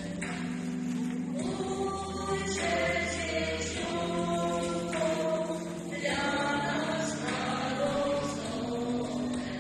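A small mixed vocal ensemble singing a Christmas carol (kolęda) in harmony: several voices hold long notes that move together to new chords every second or two.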